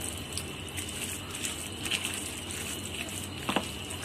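A spoon stirring and mashing wet rice mixed with curd and milk in a bowl, with a couple of light clicks of the spoon against the bowl.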